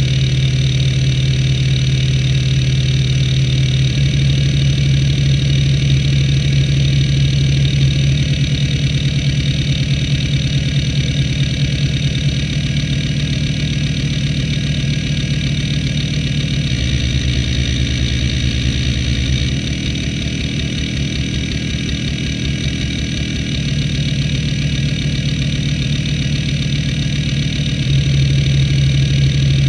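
Conner CP3360 four-platter hard drive running an hdmotion seek test: the head actuator seeks rapidly and rhythmically over the steady, rumbly hum and whine of the spinning platters. The seek rhythm changes a few times as the test moves through its patterns.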